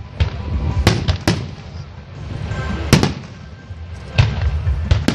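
Fireworks display: aerial shells bursting with sharp bangs, about six in five seconds, over music.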